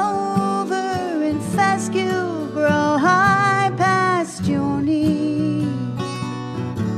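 Two acoustic guitars in a folk instrumental break: a lead guitar plays the melody, several notes sliding down in pitch, over strummed rhythm guitar.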